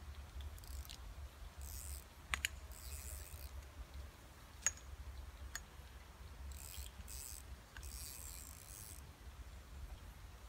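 Fishing reel being wound in short bursts of soft whirring while a hooked carp is played on a bent rod, with a few sharp single clicks between them, over a low steady rumble.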